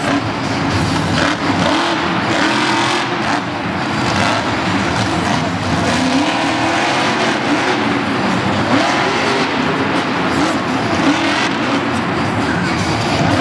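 Monster truck's supercharged V8 engine revving hard, its pitch rising and falling again and again.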